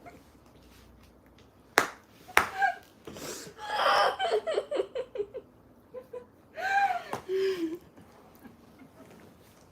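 Two sharp hand claps or slaps about two seconds in, then young women laughing in a quick run of breathy ha-ha pulses, with a second short laugh about seven seconds in.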